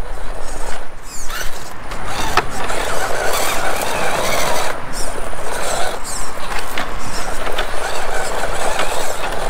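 Electric motor and gear drive of a 1/10-scale RC rock crawler whining under power while its tires scrabble on rock, with scattered clicks and knocks. It is failing to climb the rock step and makes little progress.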